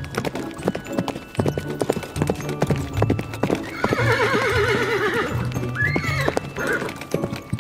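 Recorded horse whinny, a long wavering call about four seconds in and a shorter rising-and-falling call about two seconds later, over clip-clop hoofbeat sounds and background music.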